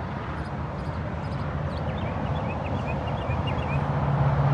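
Wind buffeting the microphone as a steady low rumble, with small birds chirping faintly in the middle. A steady low hum comes in near the end.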